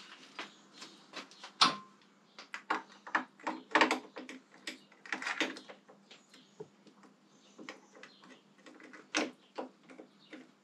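Irregular clicks, knocks and clinks of metal parts and hand tools being handled while a part is fitted at a motorcycle's handlebar. The sharpest knock comes about a second and a half in, with a busy run of clicks around four to five seconds and another knock near nine seconds.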